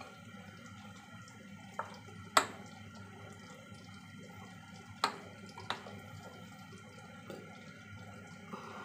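A soup spoon clinking and tapping against a batter bowl while slices of tempe are coated in batter: a handful of sharp clicks, the loudest about two and a half seconds in and another near five seconds. A steady low hum runs underneath.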